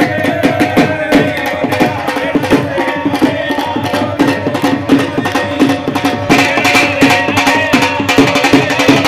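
Loud Indian dance music with a fast hand-drum beat.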